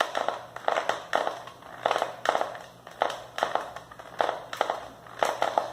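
Human teeth grinding against each other in short grating strokes, about two a second, often in pairs: the sound of bruxism.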